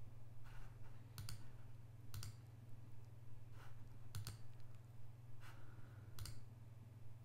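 Computer mouse clicks, a handful of separate sharp clicks a second or two apart, over a low steady electrical hum.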